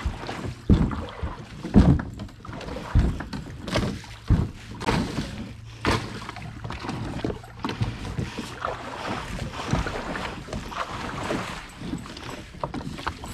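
Plastic kayak hulls knocking and scraping against fallen logs as a kayak is dragged over a logjam: a string of irregular thuds and bumps, the heaviest about two seconds in, over the hiss of flowing water.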